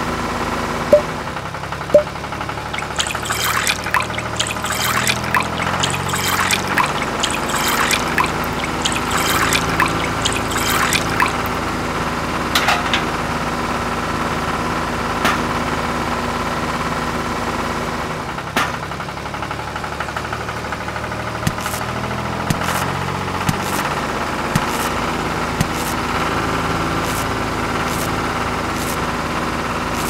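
Small motor of a miniature tomato press running with a steady hum. Wet crushing and trickling of tomato juice come in about three seconds in and last some eight seconds, with scattered clicks later on.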